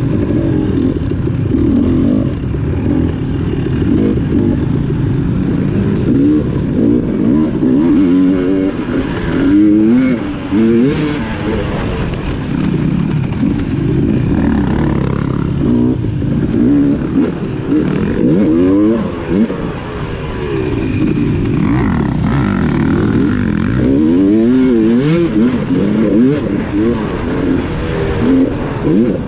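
Dirt bike engine ridden hard on a race trail, its revs rising and falling again and again with throttle and gear changes.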